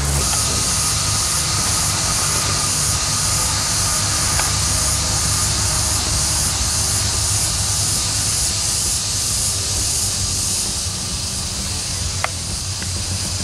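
Steady, loud high-pitched insect drone, typical of cicadas in tropical undergrowth, pulsing about twice a second over a low rumble.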